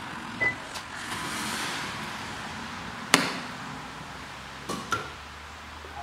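A few sharp clicks over a steady hiss, the loudest about three seconds in and two close together near the end, as charging starts on an electric car with the charging plug in its port. Some clicks carry a brief high tone.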